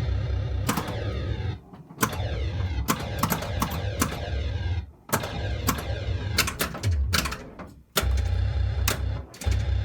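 1979 Williams Gorgar pinball machine in play: sharp clacks from the flippers and bumpers, with the game's electronic sound effects of falling tones over a heavy low rumble that starts and stops several times.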